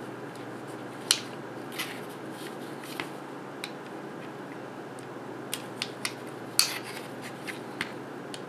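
A thin flathead screwdriver prying at the plastic snap clips of a MakerBot Smart Extruder's housing: a scattered series of sharp plastic clicks and small scrapes, the two loudest about a second in and about two-thirds of the way through.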